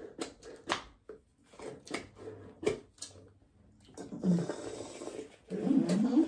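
A drink sucked up through a plastic straw, gurgling as it nears the bottom of the cup: briefly about four seconds in, then longer and louder near the end. Before that come scattered small clicks of eating and cutlery.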